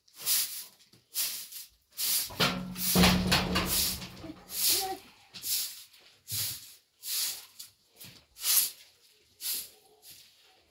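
Short-handled straw broom sweeping a floor, one swish about every second. A low hum joins briefly about two seconds in.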